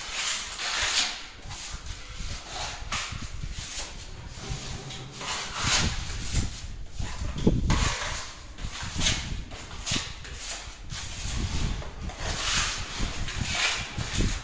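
Hand sanding of a plastered wall: sandpaper or a sanding block scraping across the surface in repeated scratchy strokes, roughly one a second and uneven in strength, with low bumps in between.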